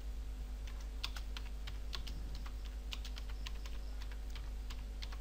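Typing on a computer keyboard: a run of light, irregularly spaced keystrokes over a faint steady hum.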